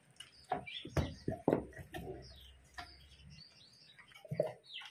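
A Labrador gnawing a raw meat bone, giving a scatter of crunches and knocks, the loudest about one to one and a half seconds in. Small birds chirp in the background.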